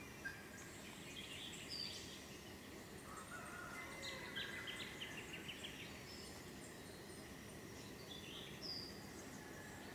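Faint outdoor ambience with wild birds calling over a steady low background noise: a few short whistles, and about a third of the way in a quick run of about eight short notes.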